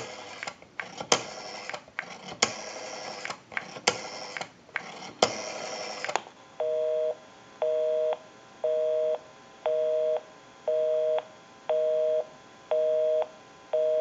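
Rotary dial of a Northern Electric desk telephone turned and whirring back several times as a number is dialed. About halfway through, a busy signal starts: a steady two-note tone, half a second on and half a second off, repeating once a second, which means the called line is engaged.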